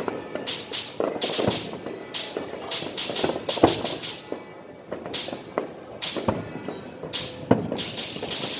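Fireworks going off in a rapid, irregular string of pops and crackles, with a couple of sharper bangs standing out.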